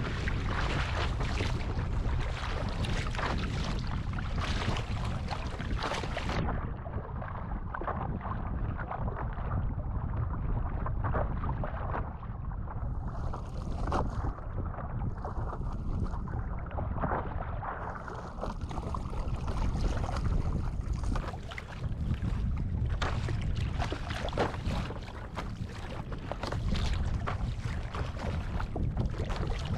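Strong wind rumbling on an action camera's microphone, with water sloshing and splashing around a stand-up paddle board. From about six seconds to about eighteen seconds the sound turns muffled and dull, then clears again.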